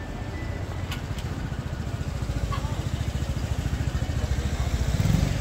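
Low, rapidly pulsing engine rumble of a passing motor vehicle, growing louder and peaking near the end, over street background noise, with two sharp clicks about a second in.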